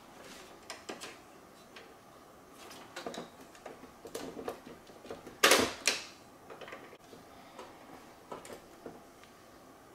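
Hand-tool and plastic-part handling while a robot-vacuum dock is taken apart: scattered clicks and small knocks as needle-nose pliers work at wire connectors in the plastic housing, with two sharp, louder knocks about five and a half seconds in.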